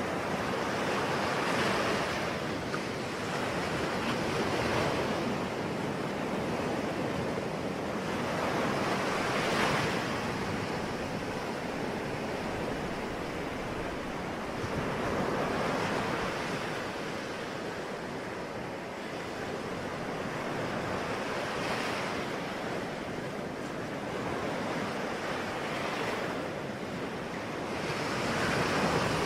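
Ocean waves breaking and washing in, a steady rush that swells and falls back every few seconds.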